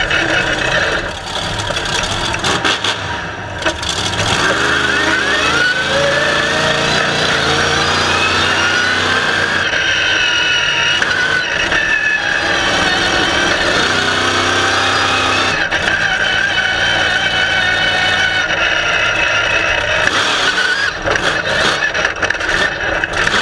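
Monster truck engine running loud, heard from a camera on the chassis, its pitch rising and falling several times as the throttle is worked, with a short dip in loudness about one to three seconds in.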